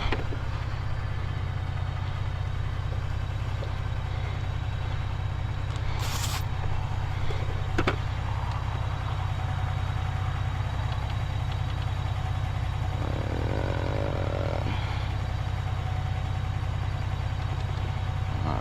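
A running motor hums at a steady low pitch throughout, with a short hiss about six seconds in and a sharp click near eight seconds.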